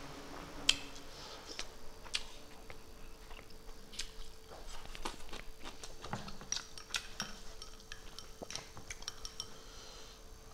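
Eating sounds picked up by a lapel microphone: a metal spoon clicking against dishes and scattered sharp mouth and chewing clicks, irregular throughout. A faint steady hum comes in about a second in.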